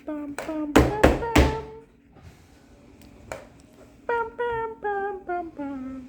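A simple tune of short, steady notes, hummed or sung, with three loud sharp knocks about a second in.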